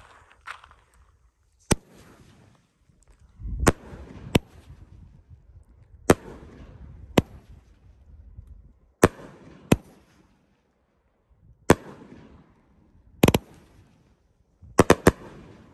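A 16-shot, 500-gram consumer fireworks cake, 'Catching Waves', firing its shots one after another as a string of sharp bangs. The bangs come irregularly, about one to two seconds apart, with a quick run of three near the end.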